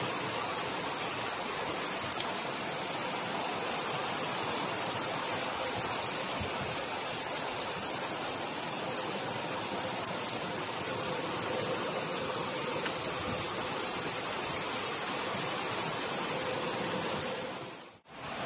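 Heavy typhoon rain pouring steadily as a dense, even hiss. It cuts off abruptly near the end.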